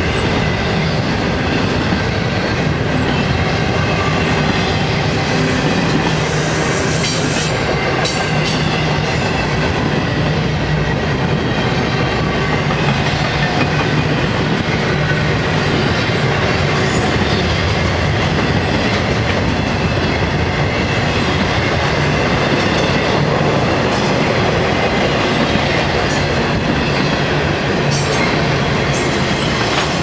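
Intermodal freight cars rolling past: a steady rumble and clatter of steel wheels on the rails, with a brief high wheel squeal now and then.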